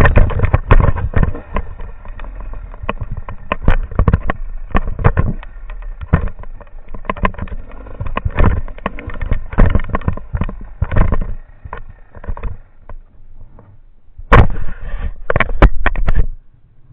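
Enduro motorcycle riding downhill over rough, broken ground: a jumble of irregular knocks and jolts over a low engine rumble. It quietens about twelve seconds in, then a short cluster of sharp knocks comes near the end.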